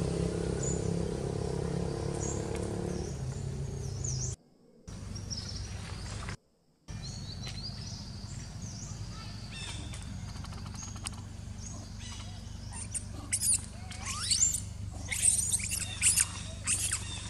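Long-tailed macaques giving a run of high-pitched squeals that rise and fall, coming thick and loud from about two-thirds of the way in. A low steady hum fills the first few seconds, and a few faint high chirps are heard before the squeals.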